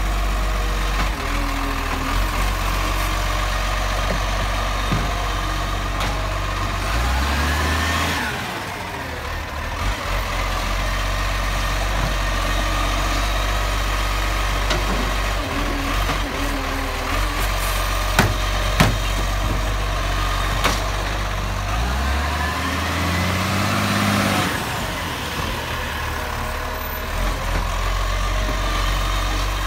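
Side-loading garbage truck's diesel engine idling, revving up twice, about a quarter of the way in and again near the end, as its Bucher hydraulic arm lifts a wheelie bin and later lowers it, with a faint rising whine each time. A few sharp knocks come a little past the middle as the tipped bin is emptied into the hopper.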